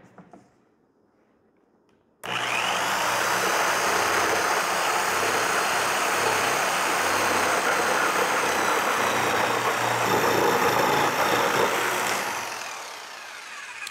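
Jigsaw starting up about two seconds in and sawing through two stacked Swisstrax Ribtrax Pro polypropylene garage floor tiles, a steady loud cutting noise with a high motor whine. The cut goes a little jerky as the blade passes through the gaps in the tiles, and it fades out near the end.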